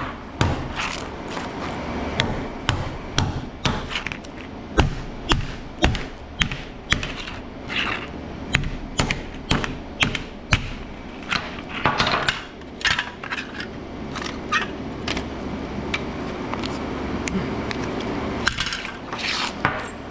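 Metal parts and tools clicking, knocking and scraping at an irregular pace as a metal electronics housing is pried apart by hand, over a steady low hum.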